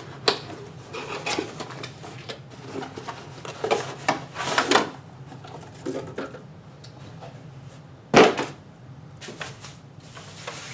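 Cardboard box and white protective wrapping being handled and rustled as a boxed part is unpacked, in irregular bursts, with one louder sharp handling noise about eight seconds in.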